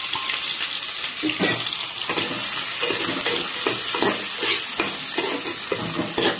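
Sliced onions sizzling in hot oil in an aluminium pot as the onion-frying stage of a curry begins. A metal spatula scrapes and stirs them against the pot in repeated strokes from about a second in.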